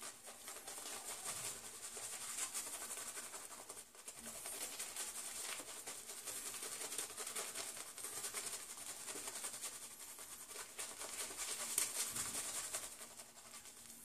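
Pure-bristle (boar) shaving brush swirled over a bearded face, whipping menthol shaving cream into lather: a steady, scratchy swishing of wet bristles through foam, with a short break about four seconds in. The lather has just been wetted, so the brush glides freely.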